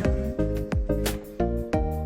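Background music with a steady beat: drums with sustained chords.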